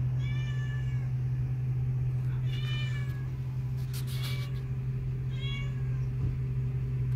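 A domestic cat meowing four times, short calls of about half a second each, the last one fainter, over a steady low hum.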